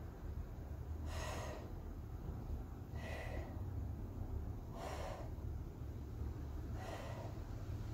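A woman breathing hard through an exercise, with four short, sharp exhales about two seconds apart, one for each leg lift. Under them is a steady low hum.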